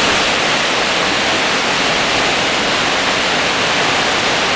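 Soča river in record flood, its floodwater churning in white-water waves: a steady, loud rush of water that begins abruptly.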